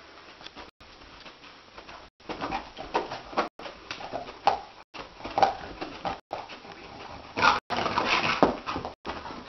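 Dog whimpering and yipping in its sleep, the sounds of a dog dreaming. Short cries come every second or so from about two seconds in and grow louder near the end.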